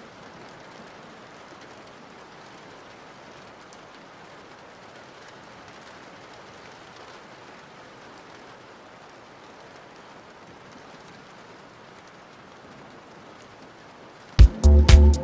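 Steady rain, an even hiss with no distinct drops. About fourteen seconds in, a hip-hop beat with heavy bass and sharp drum hits comes in loudly.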